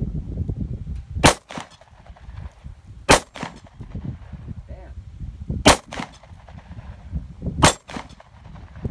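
Four shots from a small J-frame revolver, spaced about two seconds apart, each with a short echo after it, over a constant low rumble.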